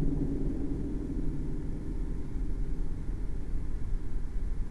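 Steady low rumble of outdoor background noise, with no clear voices or distinct events.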